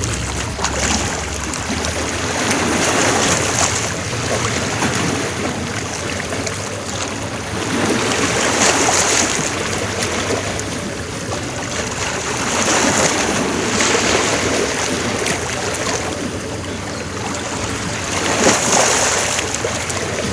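Sea waves washing onto the shore, swelling and dying away every few seconds.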